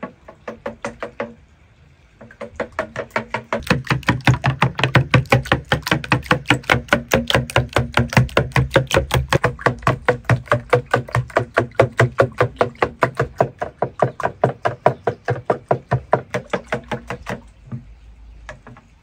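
Wooden spoon beating eggs in a glass bowl: fast, even clacks of the spoon against the glass, about six a second. There is a short pause about a second in, and the beating stops near the end.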